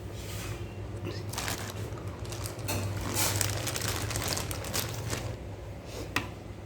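Hands rustling packaging and knocking a few times while lifting a mixer grinder and its jars out of the box, with a steady low hum underneath.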